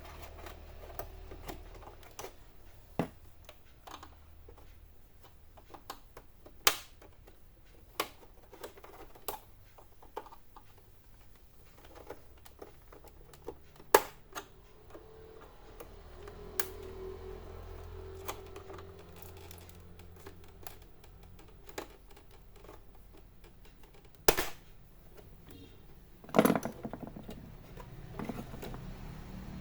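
Scattered sharp plastic clicks and snaps as the back cover of an HP all-in-one PC is pried open with a flathead screwdriver, with a longer crackling snap near the end.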